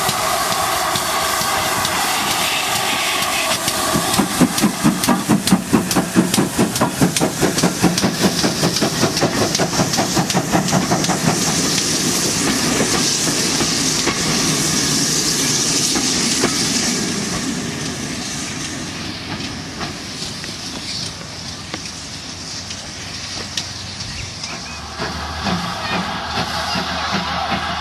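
A GWR steam locomotive working a passenger train past at close range. About four seconds in, a rapid run of exhaust beats and wheel clatter over the rail joints grows loud. Around the middle comes a strong hiss of steam, and then the sound eases off as the train draws away.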